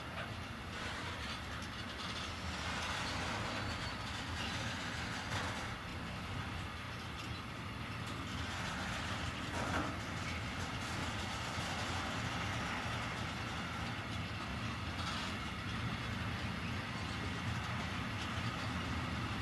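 Freight train of empty container flat wagons rolling past, a steady noise of steel wheels running on the rails with a few faint knocks along the way.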